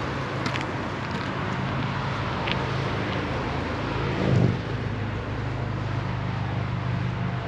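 Road traffic: a steady engine hum, with one vehicle passing loudly about four seconds in.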